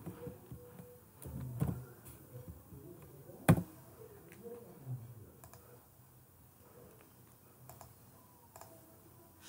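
Computer keyboard typing: a few scattered key clicks, with one sharp louder click about three and a half seconds in.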